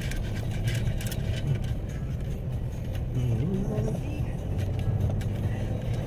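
Vehicle engine running under load with road noise, heard from inside the cabin while climbing a steep hill, with a few brief rattles in the first second or so.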